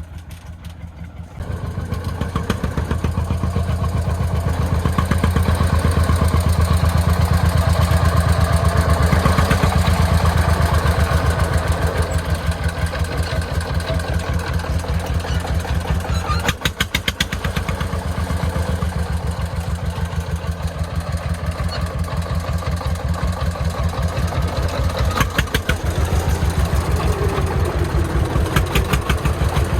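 Single-cylinder diesel engine of a homemade Vietnamese công nông farm truck running under load, with a rapid, even chugging beat. It gets louder about a second and a half in and stays steady, with a couple of sharp knocks later on.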